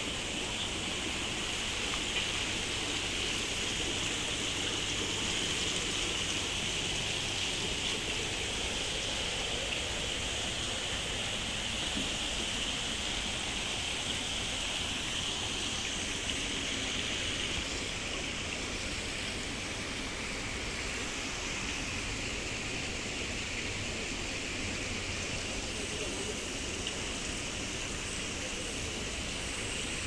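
Water splashing steadily into a koi pond, a constant rushing hiss whose high part eases a little about two-thirds of the way through.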